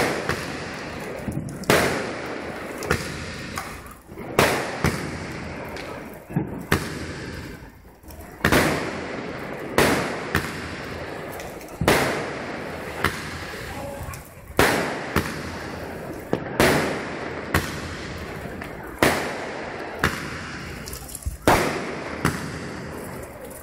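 Aerial fireworks bursting overhead. A sharp bang comes every second or two, a dozen or more in all, each trailing off briefly.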